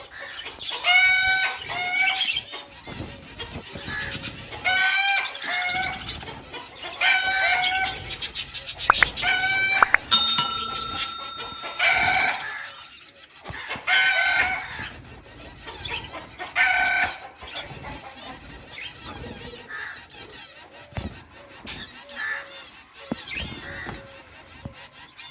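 Birds calling: loud pitched calls about a second long, repeated every two to three seconds over continuous high, thin chirping. A steady, whistle-like tone sounds for about two seconds near the middle.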